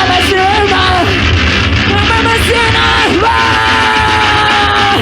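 Loud, dense band music with a shouted vocal. A little past midway the voice slides down, then holds one long note to the end.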